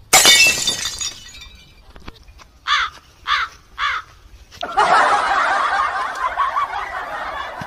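A sudden loud crash like something breaking, then three short separate calls, then from about five seconds in a few seconds of dense laughter.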